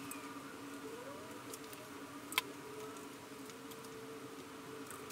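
Faint steady hum with light ticks and one sharp click about two and a half seconds in, from a hot glue gun being worked while gluing control horns into foam board.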